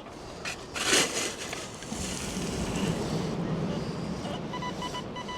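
A sharp crunch of shingle about a second in, then a steady low background rumble; near the end an XP Deus 2 metal detector gives a run of short, evenly repeated beeps as it sounds off on a buried target.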